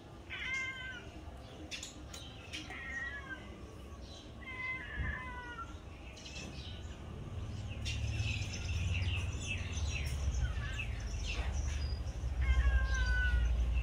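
Domestic tabby cat meowing four times: three meows in the first five seconds and one near the end. A low rumble rises under it through the second half.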